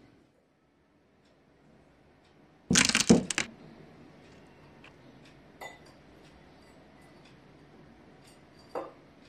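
A loud, sharp clatter of hard objects with glassy clinks, under a second long, about three seconds in. A few faint clicks follow, and a softer knock comes near the end.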